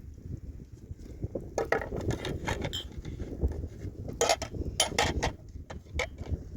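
Scattered knocks and clinks of objects being handled, in two bunches about two seconds and four and a half seconds in, over a low steady rumble.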